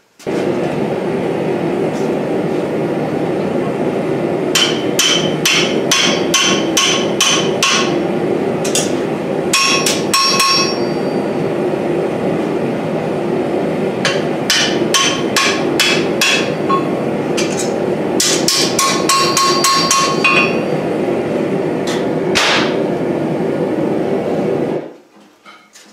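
Hand hammer striking hot mild steel on an anvil, driving the split end of a slit bar down onto a hot cut to clean up the ragged crotch. The blows come in quick runs of several strikes with a bright anvil ring, then a pause, and once more alone near the end, over a steady rushing noise that cuts off abruptly near the end.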